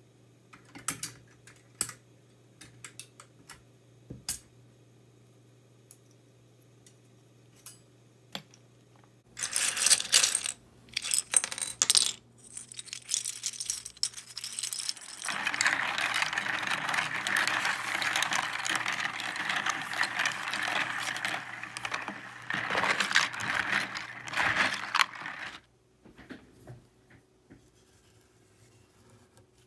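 Plastic keycaps from an RK61 keyboard clattering together: scattered single clicks at first, then a dense jumble of clatter, then about ten seconds of continuous rattling that stops suddenly.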